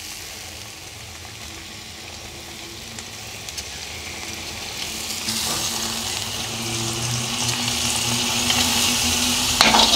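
Lamb, onion and carrot base (zirvak) sizzling in a kazan, the sizzle growing steadily louder, with a faint steady low hum beneath.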